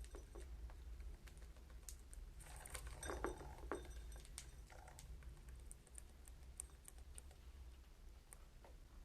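Faint, scattered clicks and taps, most likely budgies' beaks and claws tapping and scratching on hard surfaces, with a busier cluster of clicks and a brief high chirp about three seconds in.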